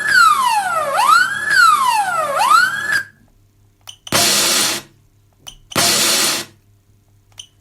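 Sound-module speaker playing a fire-truck siren: a wail that sweeps down and back up about every second and a half, cutting off about three seconds in. Then two short hisses of compressed air being released, each just over half a second long, with a faint click just before each.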